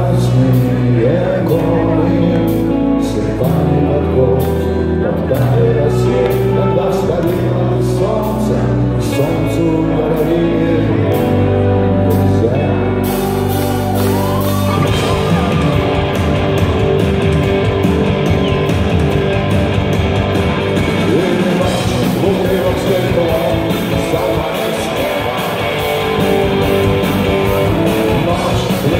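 Live rock band in a large hall: a man sings over slow, long-held low chords, then about halfway through the full band comes in with electric guitars and drums.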